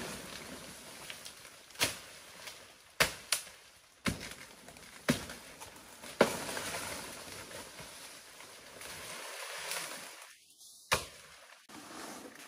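Sharp chopping strikes of a blade cutting through plant stems, about seven at uneven intervals, with leaves and fronds rustling between them.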